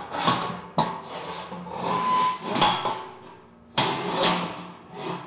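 Metal rods scraping and clanking against a steel grill top as they are slid out from under it, in a series of separate scrapes with a brief metallic ring about two seconds in.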